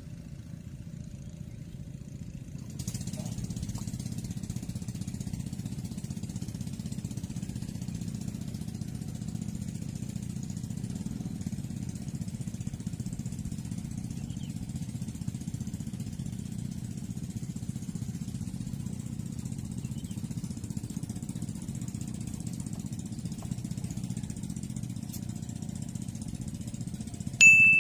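A small engine running steadily with a low drone, growing louder about three seconds in. Near the end a short, sharp high-pitched tone sounds once.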